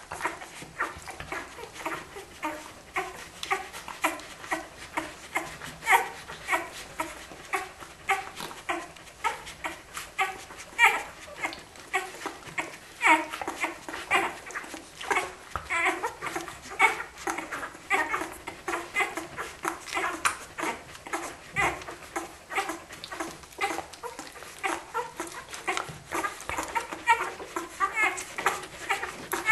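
Week-old Australian Kelpie puppies squeaking and whimpering as they nurse from their mother: a steady stream of short, high squeaks, several a second.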